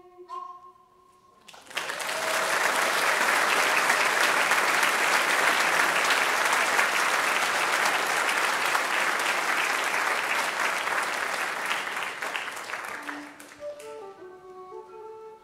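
Audience applause for about eleven seconds after a tune ends, fading out; near the end a metal low whistle starts a new tune with a run of pitched notes.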